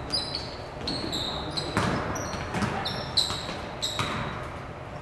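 Basketball bouncing on a hardwood gym floor, several bounces, with short high squeaks of sneakers on the court as players move, in an echoing gym.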